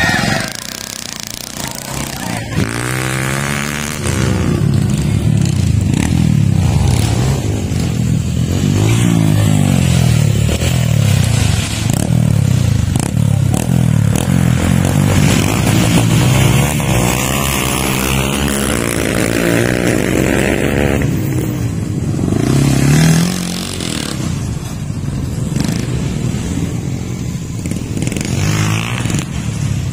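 Old pickup truck's engine revving hard on a dirt track, its pitch climbing and dropping again and again as the driver accelerates and lifts off. The engine is quieter for a few seconds near the end.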